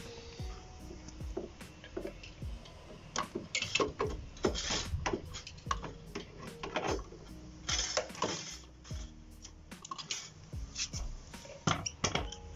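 Background music with an even ticking beat, about four ticks a second, over irregular rasping strokes.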